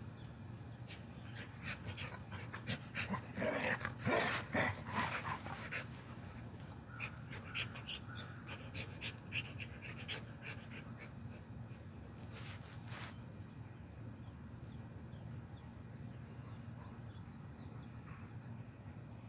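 Two dogs playing, vocalising in a loud burst of short sounds about three to five seconds in, then a run of quieter short sounds. A brief scuffing noise comes around the middle.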